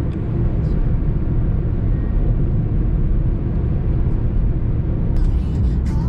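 Steady road and engine rumble inside the cabin of a rental Mazda cruising at highway speed. Music comes in about five seconds in.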